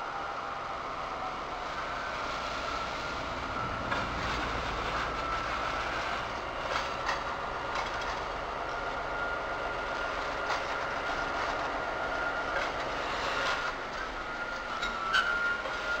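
Open freight wagons rolling slowly past while shunting, their wheels clicking over rail joints under a thin, steady squeal. The sharpest clicks come near the end.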